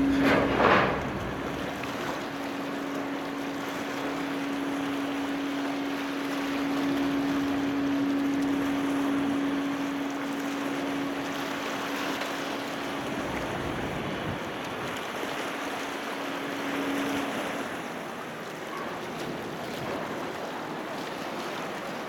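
Harbour ambience beside a berthed car ferry: wind and water noise with a steady machinery hum from the ship, which stops about seventeen seconds in. A brief loud rush of noise comes right at the start.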